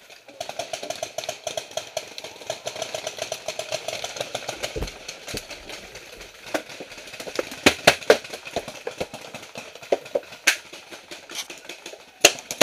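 Paintball markers firing: a fast, steady string of pops for the first half, then louder single shots and a quick burst of shots near the end.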